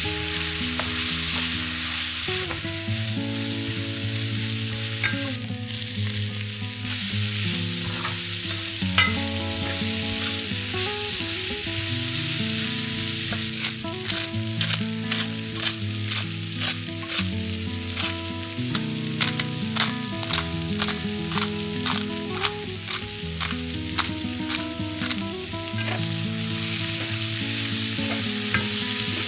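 Food sizzling in hot oil in a frying pan while being stirred, with a run of quick taps of the utensil against the pan through the middle.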